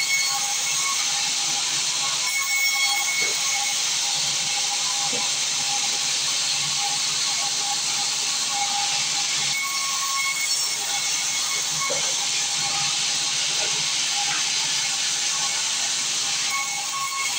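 Sawmill saw running through wood: a loud, steady hiss with a thin constant whine.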